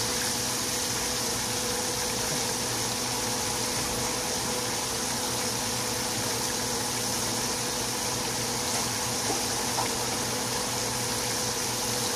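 Breaded pork chops frying in a skillet of hot oil, a steady sizzle that keeps an even level throughout, with a faint steady hum beneath it.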